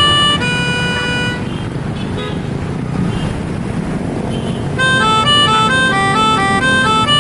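Bus 'telolet' multi-tone air horn playing a quick melody of changing notes. It stops about a second and a half in and starts again near five seconds, with a steady low rumble underneath.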